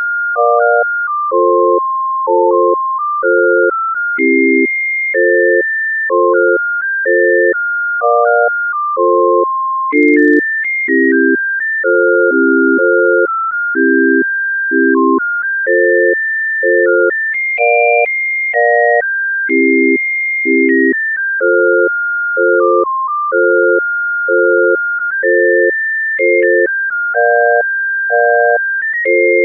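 Synthesized emergency-alert tune made of pure electronic tones. A high beeping melody steps from note to note over a steady pulse of lower chord tones, with a brief click about ten seconds in.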